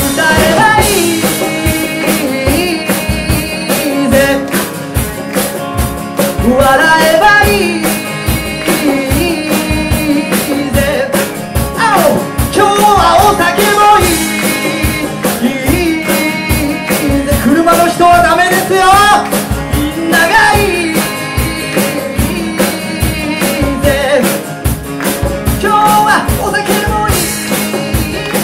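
Live rock-and-roll band playing: drum kit keeping a steady beat under electric guitars and bass, with a bending melody line on top.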